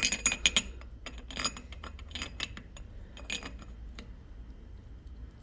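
Steel fourth-gear dog slider of a Samsonas sequential gearbox clinking against the splined mainshaft and gear as it is lifted off, turned over and slid back on. It comes as several short bursts of metallic clicks with a light ring over the first three and a half seconds.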